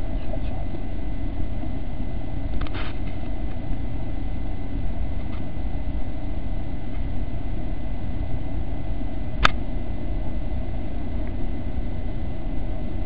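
Steady low rumble of background noise, with a single sharp click about nine and a half seconds in.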